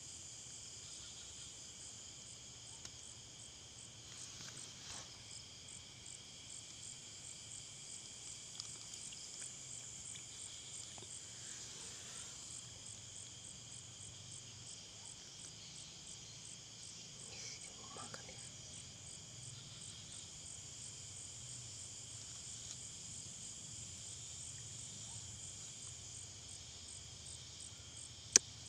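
Steady high-pitched chorus of night insects with a fast, regular pulsing, and a single sharp click just before the end.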